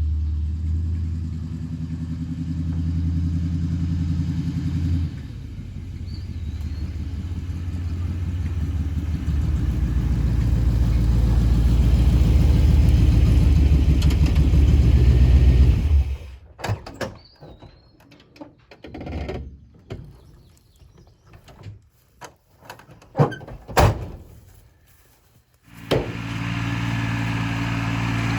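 An engine running steadily, shifting note about five seconds in and growing louder until it cuts off sharply. Scattered knocks and clicks follow for about ten seconds, then an engine runs steadily again near the end.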